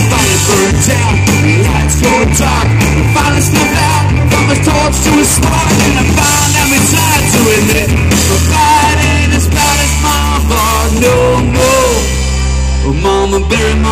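Live rock band playing loud, full-band rock on electric guitars, bass guitar and drum kit, with a wavering melodic line over the top.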